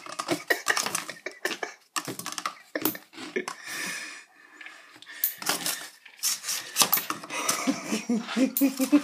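Cardboard tube batted by a cat's paw reaching under a door: a quick, irregular run of light knocks and clatters as the tube hits the bottom of the door and skids on the wooden floor.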